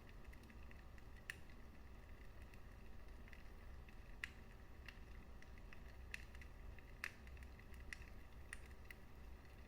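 Fireplace fire crackling: irregular sharp pops and snaps, a few louder than the rest, over a soft low rumble of the flames.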